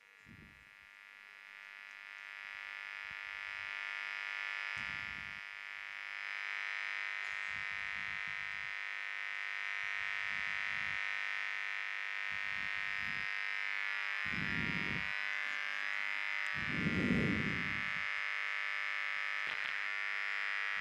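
Electronic drone music: a dense, steady high drone fades in over the first few seconds, with irregular low thumps under it, the two biggest late on.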